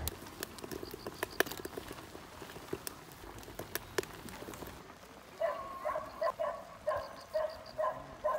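Scattered sharp clicks and crackles from cooking over a wood-fed rocket stove. About five seconds in, an animal starts calling over and over in short pitched calls, about two a second.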